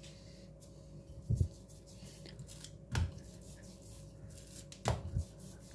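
Wooden rolling pin rolling out a dough sheet on a marble rolling board, with four soft knocks spread through as the pin is set down and pushed across.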